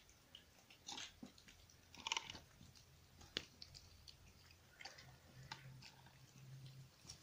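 Kittens eating: faint, irregular chewing clicks and crunches, loudest about two seconds in.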